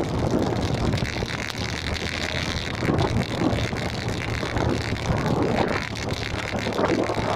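Wind buffeting the microphone over the steady low hum and road noise of a moving vehicle.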